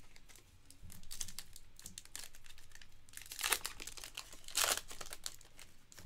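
Foil trading-card pack wrapper being torn open and crinkled by hand. There is a run of crackling with two louder crackles about three and a half and four and a half seconds in.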